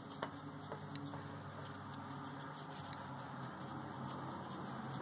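A Kohler spin-on oil filter being slowly unscrewed by hand: faint handling and a few light clicks in the first second, over a low steady hum.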